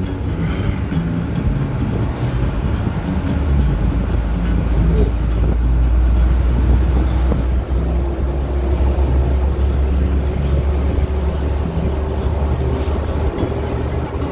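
Inside a moving car's cabin: a steady low rumble of engine and road noise as the car drives along.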